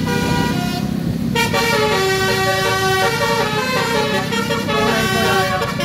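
Basuri, a musical multi-tone bus horn, playing a tune of short held notes that step from pitch to pitch, over the engine and road noise of traffic.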